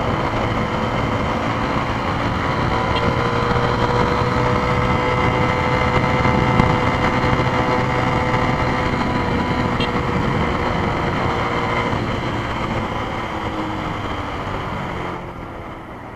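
Yamaha Fazer YS 250's single-cylinder engine through its stock exhaust, held at high revs while riding, over road and wind noise. The steady engine note fades after about twelve seconds and eases off near the end.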